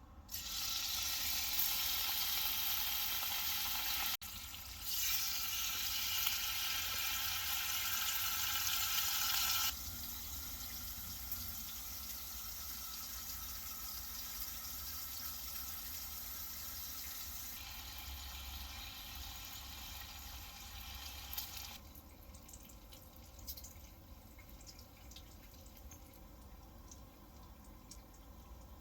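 Food sizzling in a frying pan: a steady hiss, loud for the first ten seconds, then quieter, with sudden jumps in level as the stretches are cut together, fading to a faint hiss over the last several seconds.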